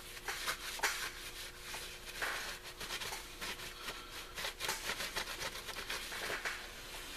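Cloth rag rubbing and wiping the bare metal nose of an AC compressor where its pulley has been removed, in irregular scratchy strokes, clearing off corrosion and sanding grit.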